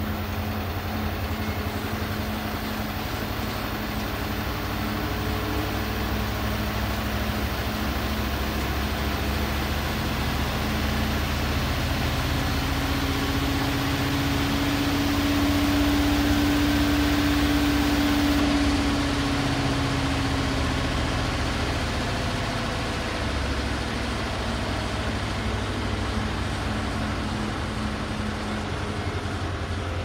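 LG WT7300CW top-load washer's direct-drive motor spinning the tub during the test cycle's spin test: a steady mechanical whir and hum. About halfway through, a tone swells and climbs a little in pitch as the noise gets louder, then fades away again.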